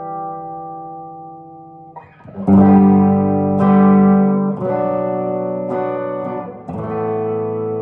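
1968 Gibson SG Junior electric guitar with a single P90 pickup, played through an amp: a held chord fades out, then three chords are struck one after another, each left to ring.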